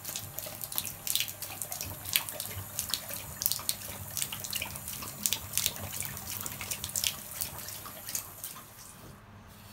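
Tap water running into a bathtub while a boxer dog laps from the stream, with irregular wet splashing clicks. The running water and lapping stop near the end.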